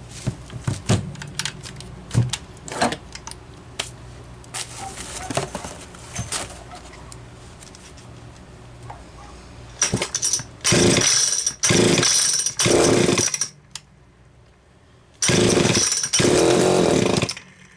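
Homelite Super XL-925 two-stroke chainsaw engine being pull-started: it fires in five short bursts of about a second each, in a group of three and then a group of two, but never keeps running, a sign of its low compression. Before that come light metal clicks and knocks as the spark plug is refitted.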